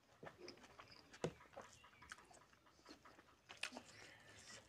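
Quiet, close-up hand-eating sounds: scattered wet clicks and squelches as fingers squeeze tomato into rice and curry and tear into curried chicken, mixed with chewing. The sharpest click comes a little over a second in.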